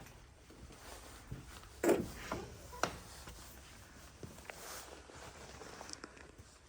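Footsteps and scattered scuffs and knocks of someone walking through a building, the loudest thump about two seconds in.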